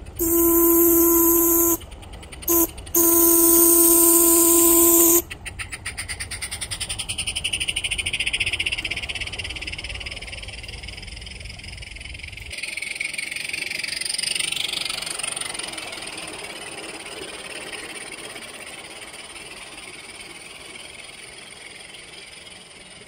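Weltyk steam whistle on a butane-fired live-steam Forney locomotive blowing the end of a long blast, a short toot and a final long blast, over a hiss of steam; the blasts end about five seconds in. Then the locomotive's exhaust beats, rapid and even, with a hiss that swells and slowly fades as the engine runs away.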